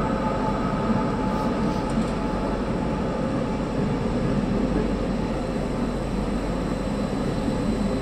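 Metro train running at a station platform: a steady dense rumble of wheels and motors with several held whining tones over it, with no sharp change.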